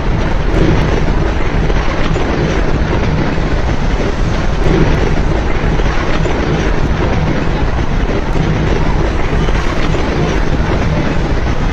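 Loud, steady, echoing din of a large crowd filling a multi-storey mall atrium during an earthquake, with a deep rumble underneath and no single voice standing out.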